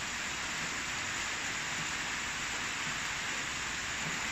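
Rain falling steadily: an even, continuous hiss.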